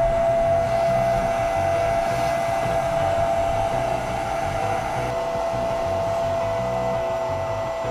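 Vacuum cleaner running steadily with a constant high motor whine, its wand sucking dirt out of a motorcycle engine.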